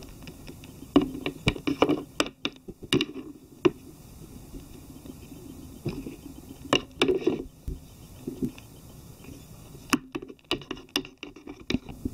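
Plastic toy figures and doll clothes handled in a small wooden box: irregular clusters of light clicks, taps and knocks with some scraping and rustling.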